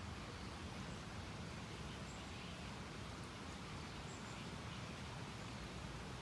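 Steady outdoor background noise with a low rumble and an even hiss, and two faint, brief high chirps about two and four seconds in.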